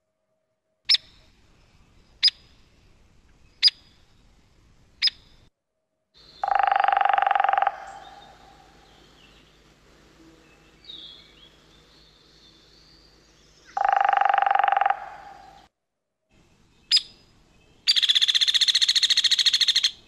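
Recorded hairy woodpecker calls: four sharp single 'peek' notes about a second and a half apart, two louder bursts about a second long, then another 'peek' and a fast rattling whinny near the end that can sound like laughter or a monkey.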